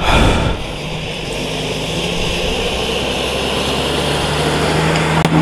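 A motor vehicle engine running steadily with a low drone, slowly growing louder, after a short rush of noise at the start.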